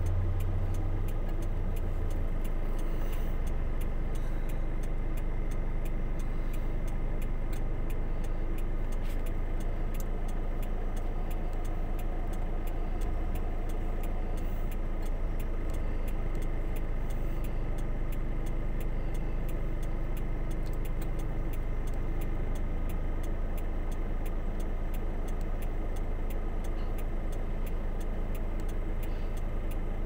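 Engines idling steadily with a light, fast ticking running through the hum.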